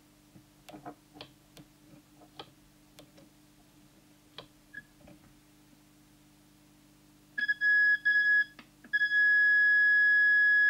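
Small clicks of fingers fumbling at the buttons of a Harvard 020 CB walkie-talkie. About seven seconds in, its call-tone oscillator sounds a loud, steady, high pure tone. The tone breaks off twice briefly, then holds. It is the test tone produced by pressing transmit and battery test together, used for setting the transmitter's deviation.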